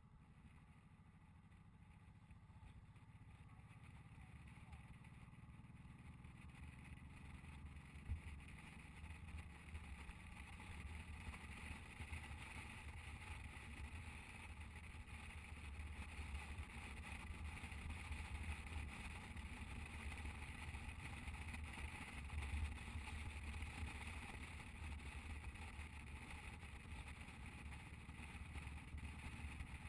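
Motorcycle under way, its engine and the rush of wind growing steadily louder as it picks up speed, with a single sharp knock about eight seconds in.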